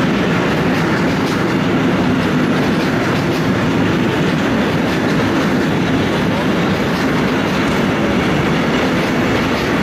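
Freight train of steel-coil flat wagons, tank wagons and sliding-wall wagons rolling past at steady speed: continuous wheel-on-rail noise with faint clicking of wheels over the rails.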